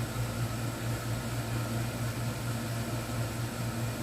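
Air conditioner running: a steady low hum with an even hiss of air.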